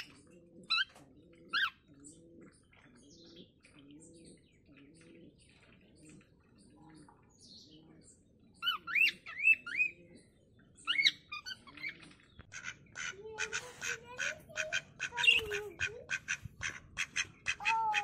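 Caged birds calling: short runs of sharp rising chirps over a soft low call that repeats steadily. About two-thirds of the way in comes a fast run of harsh calls from ducks quacking.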